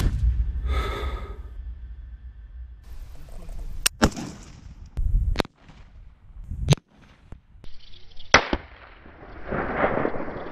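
Rifle shots: about five sharp cracks spread over a few seconds, over a low rumble.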